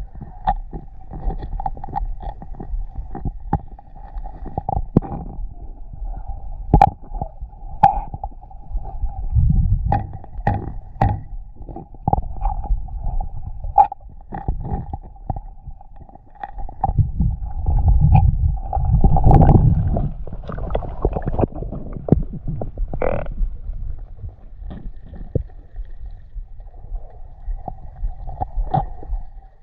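Muffled water and handling noise picked up by a waterproof action camera during spearfishing. There are low rumbles, scattered clicks and knocks, and a steady faint hum, with two louder swells of rumble, one about ten seconds in and a longer one past halfway.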